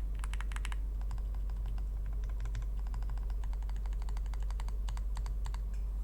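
Typing on an Owlab Spring ergonomic Alice-layout mechanical keyboard with factory-lubed Gateron Oil King linear switches, an aluminium plate and GMK Modol keycaps. A quick run of keystrokes comes at the start, then slower, spaced key presses that stop near the end, over a steady low hum.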